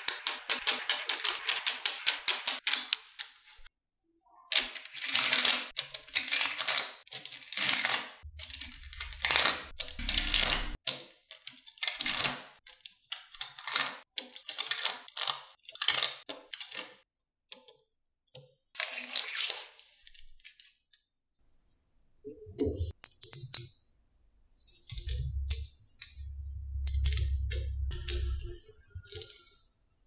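Small magnetic balls clicking and clattering as they are snapped together by hand. A fast run of clicks at the start gives way to short bursts of rattling, sliding clatter with brief pauses between them.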